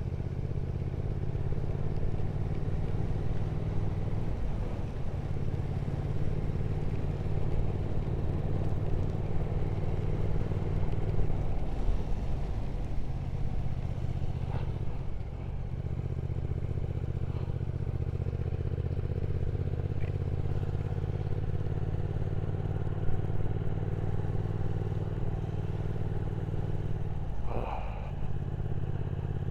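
Triumph Speed Twin 1200's parallel-twin engine running steadily at road speed under a rider's helmet camera, with rushing wind noise, and a brief dip in engine sound about halfway through.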